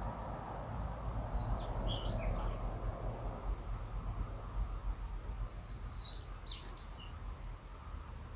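Daurian redstart singing two short phrases of quick, high, varied notes, about four seconds apart, over a steady low background rumble.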